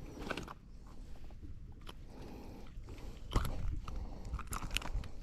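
Scattered knocks and scrapes on a fishing boat as a freshly caught largemouth bass thrashes, with one louder thump about three and a half seconds in.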